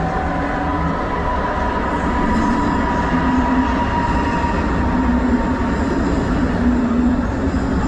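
Passenger train pulling into an underground station platform: a steady rumble under a thin high whine that sinks slowly in pitch and fades after about five seconds.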